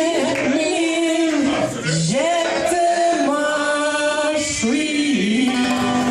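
Male voice singing a song live, holding long notes with slides between them, over an unplugged band.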